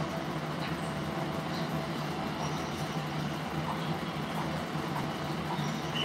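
Steady machine hum with an even hiss, from some running appliance, with a few faint short sounds on top.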